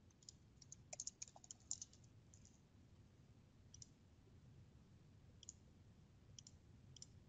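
Faint computer keyboard typing for about two seconds, then a few single mouse clicks spaced a second or two apart, over near-silent room tone.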